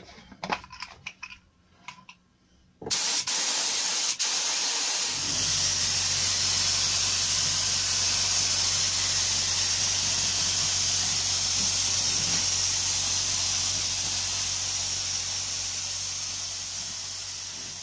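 A few light handling clicks, then about three seconds in a Devilbiss FLG5 gravity-feed spray gun starts spraying: a loud, steady hiss of compressed air. A low steady hum joins it about two seconds later, and the sound slowly fades near the end.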